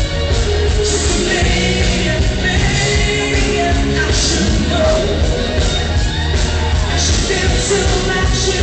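Loud rock music with a singing voice, played without a break.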